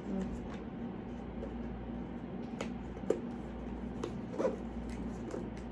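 Hands fiddling with a cardboard earbuds box while trying to open it: a few scattered light clicks and taps of packaging, over a faint steady hum.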